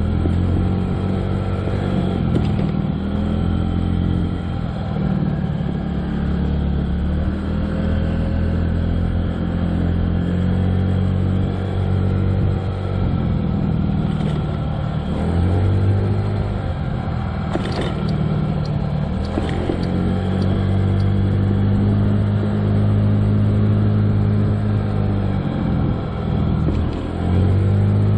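Honda Ruckus 49cc four-stroke scooter engine running under way, its pitch dipping and climbing again several times as the throttle is eased off and reopened. Two short knocks a little past the middle.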